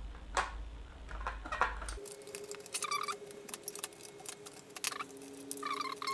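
Craft knife cutting a channel into a foam RC wing, the foam squeaking against the blade in several short squeaks in the second half, with a few light clicks before.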